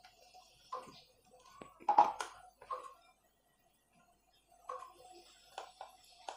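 Steel spoon stirring flour and water in a glass bowl: irregular short clinks and scrapes of the spoon against the glass, loudest about two seconds in, with a quieter run of taps near the end.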